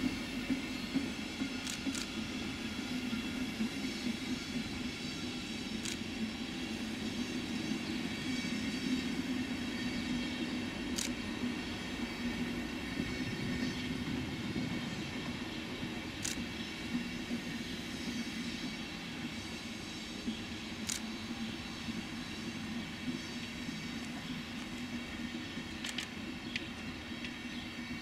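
Passenger coaches of a night train rolling slowly past, a steady rumble of wheels on rails. A sharp click sounds about every five seconds.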